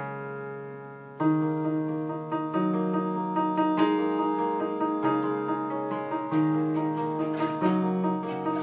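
Instrumental song intro: piano chords held and changed every second or so, with a quick, light percussive rhythm joining about six seconds in.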